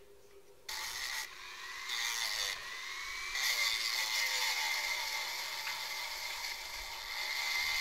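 Handheld rotary tool with a small sanding drum running at high speed, sanding the edge of a wooden cross. The high whine starts under a second in, and its pitch rises and dips as the drum presses into the wood.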